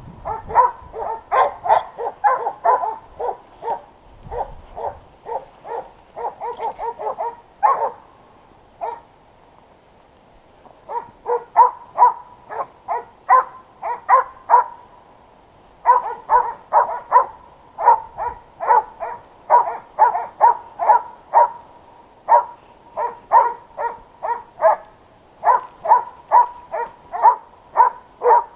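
Hunting hounds barking in quick, steady runs, about two to three barks a second, breaking off around eight seconds in and resuming about three seconds later: the bay of dogs that have found and are holding a wild boar.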